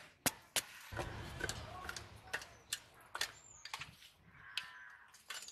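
Irregular sharp clicks and taps of turmeric-coated mackerel pieces and steel dishes being handled.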